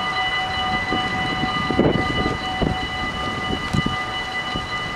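Dutch level-crossing bells ringing steadily while the half barriers come down, with a few low knocks and rumbles about two seconds in.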